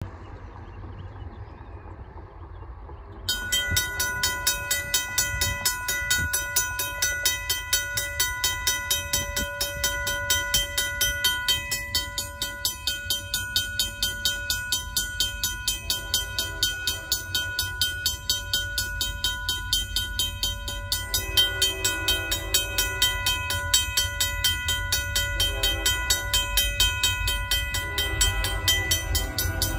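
RACO mechanical crossing bell starting up about three seconds in and ringing on in a fast, even rhythm of metallic strokes: the grade crossing's warning for an approaching train.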